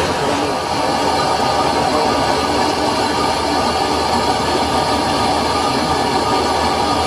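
Metal lathe running steadily, turning a large multi-groove V-belt pulley while the tool cuts its face: an even, continuous machine noise with a faint steady tone and no separate knocks.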